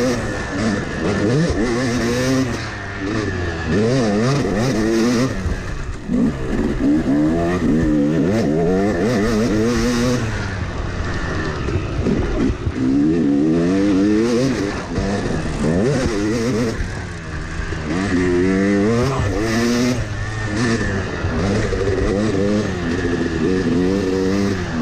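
Yamaha 250 two-stroke dirt bike engine ridden hard, its revs climbing through the gears and dropping back again and again, with wind rushing over the microphone.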